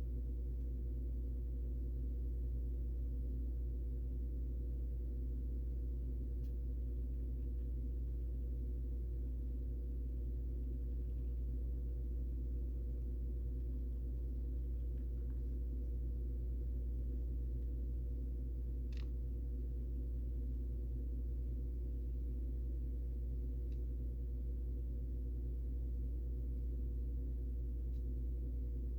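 A steady low hum throughout, with a few faint, very short clicks scattered through it. The clearest click, about two-thirds of the way in, fits a hamster's tiny sneeze.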